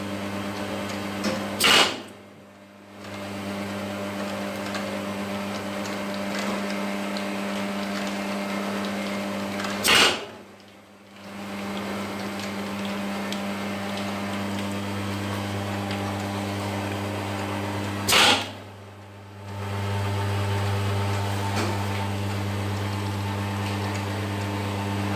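Capsule-filling machine running with a steady hum. Three times, about eight seconds apart, it stops with a loud click, falls quiet for about a second, then starts humming again.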